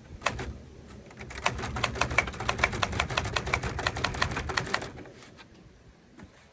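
Typewriter keys striking. A couple of keystrokes come just after the start, then a short pause, then a quick run of about six strokes a second. The typing stops about five seconds in.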